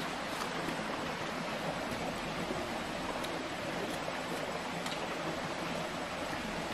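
Steady rushing of flowing stream water, even and unbroken, with a few faint sharp clicks.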